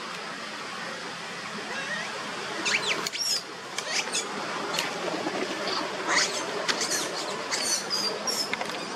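Young macaque giving a run of short, high-pitched squeaks while being held, over a steady background hiss.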